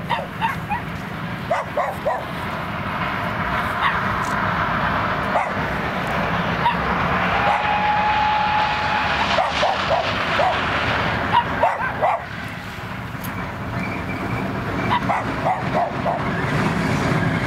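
A dog barking again and again in short bursts, over the rumble of the OKz32-2 steam locomotive approaching with its train, growing louder toward the middle. A brief steady tone sounds near the middle.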